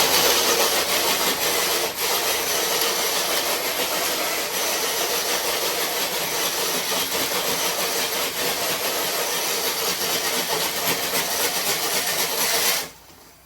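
RC crawler truck pulling a weighted sled, its electric motor and gears running hard under load with a dense, rapid grinding and scraping that stops suddenly near the end. The pinion gear strips out on this pull.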